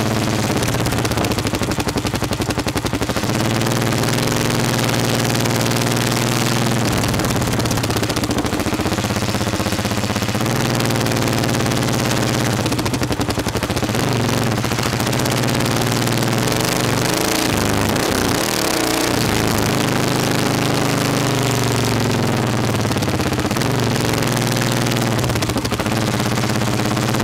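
Motorcycle engine running on the move, heard through a camera mounted low on the bike, its pitch stepping and sliding up and down with the throttle and gear changes, most noticeably about two-thirds of the way in.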